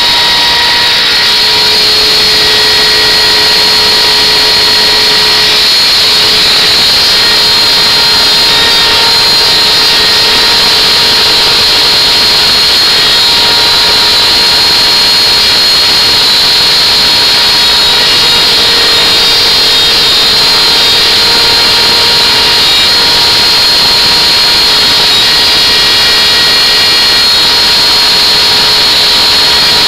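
CNC router spindle running steadily with a high whine while its bit engraves letters into a wooden board.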